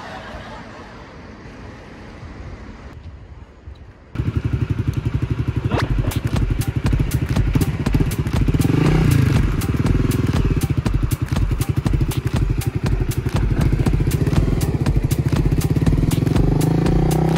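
Honda CBR250R's single-cylinder engine comes in suddenly about four seconds in and runs with a fast, even pulsing beat. Its revs bend up and down a few seconds later and rise again near the end.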